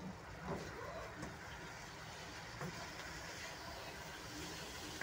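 A plastic spatula stirring chopped green capsicum and chicken in a non-stick wok over high heat: a few soft scrapes and knocks against the pan over a steady frying hiss.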